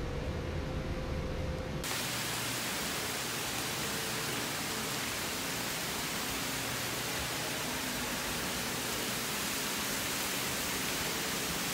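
A low hum, then about two seconds in an abrupt switch to a steady, even hiss like static or rushing air, with no distinct events in it.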